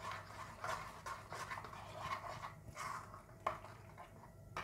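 Metal spoon stirring a wet rice-flour and tomato-juice paste in a bowl: quick, repeated scraping and squelching strokes, with a couple of sharper clicks of spoon on bowl near the end.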